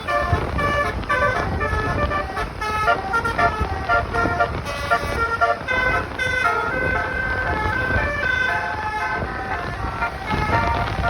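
Basuri bus horn playing a tune: a quick run of melodic horn notes that change pitch every fraction of a second, over a low engine rumble.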